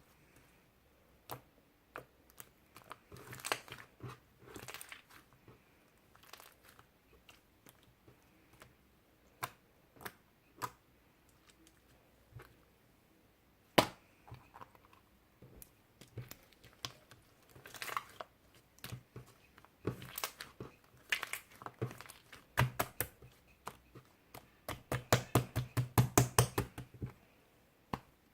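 Pink jelly-like slime being pressed and poked by hand, making scattered sticky clicks and pops, with a fast run of clicks, about eight a second, near the end.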